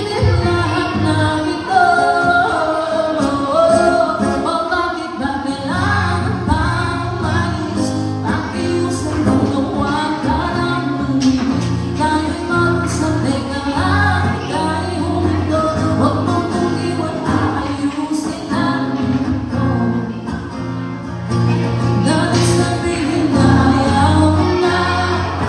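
Live acoustic duo: a woman singing a ballad into a microphone over an acoustic guitar, amplified through a PA.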